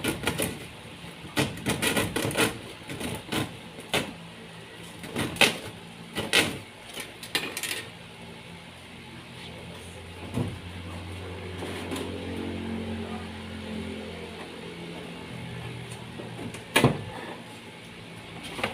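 Irregular sharp knocks and clatter of home carpentry work, wood and tools being handled and struck, then a steady low mechanical hum for several seconds from about ten seconds in, and one more knock near the end.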